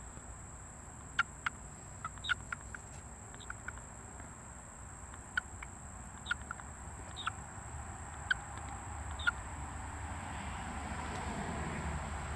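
A frog giving a string of short, high chirps, irregular at first and then about one a second.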